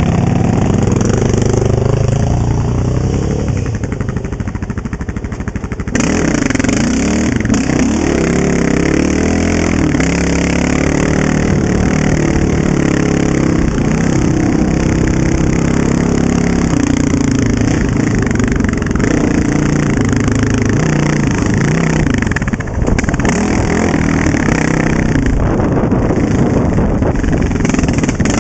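Honda TRX700XX sport quad's single-cylinder engine with an FMF aftermarket exhaust, ridden on a trail, its pitch rising and falling as the throttle is worked through the gears. It runs a little quieter for the first few seconds and grows louder about six seconds in.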